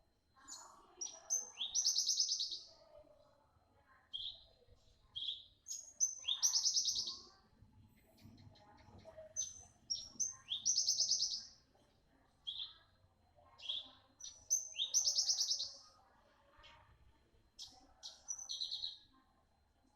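Young Javan bushlark (branjangan, parva type) singing with a sharp voice: four times, a few short high notes lead into a dense, high-pitched trill about a second long, with single clipped notes in between.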